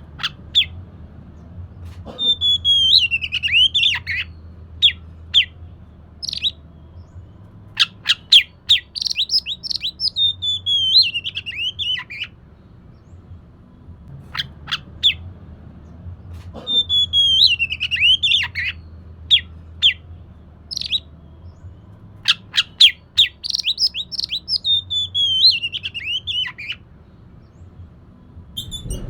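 Oriental magpie-robin (kacer) singing: loud, varied phrases of sharp chip notes and falling whistles in bursts separated by short pauses. The same passage of song repeats about halfway through, as in a looped recording.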